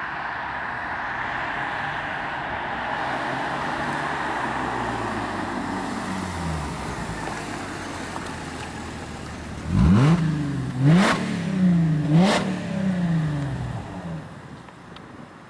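Mercedes-Benz CLC 350's V6 engine through a mariani sport exhaust: the engine note falls away, then about ten seconds in it is revved in three sharp throttle blips, each rising and dropping back, before fading out.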